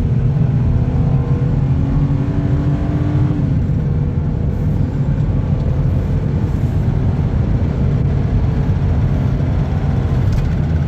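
Ford Territory's Barra straight-six pulling hard under acceleration, its note rising, then a gearchange about three and a half seconds in and climbing again. It runs without a miss now that water has been dried out of the rear ignition coils.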